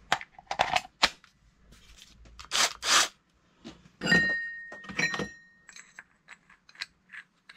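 Metal hole saws and a plastic kit case being handled: a series of knocks and scrapes, with two metallic clinks about four and five seconds in that ring briefly, then light ticks as a hole saw is fitted onto its arbor.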